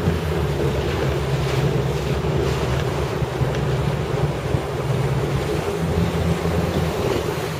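Wind buffeting the microphone aboard an inflatable boat at sea: a steady low rumble with the hiss of wind and water.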